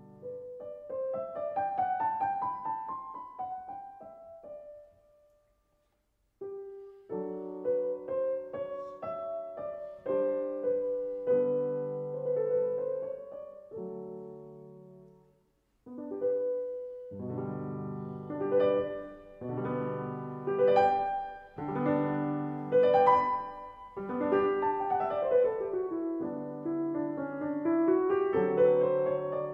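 Piano music played as a slow line of single notes and chords, with two brief silences about six and fifteen seconds in.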